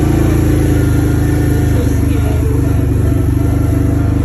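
Vehicle engine running steadily at an even speed, heard from on board while driving a dirt track.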